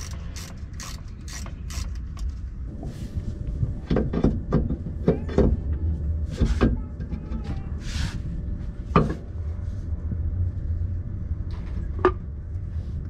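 Irregular metal clinks and knocks as the rear driveshaft of a Jeep Cherokee XJ is worked loose and slid out of the NP231 transfer case, over a steady low rumble.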